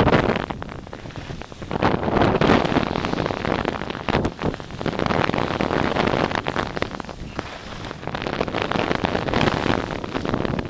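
Wind rushing over a skier's body-worn camera microphone and skis hissing across the snow during a downhill run. The rush swells and fades every couple of seconds, with a sharp click about four seconds in.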